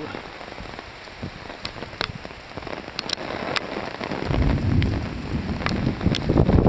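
Rain falling steadily, with scattered individual drops ticking sharply. About four seconds in, a louder low rumble sets in and builds toward the end.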